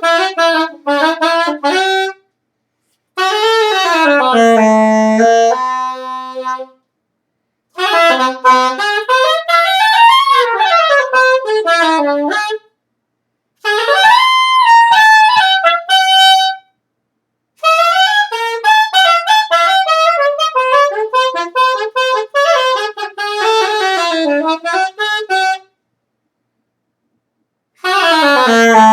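A single horn played solo in free improvisation: runs of notes that swoop up and down in pitch, in six phrases separated by short pauses. There is no steady beat.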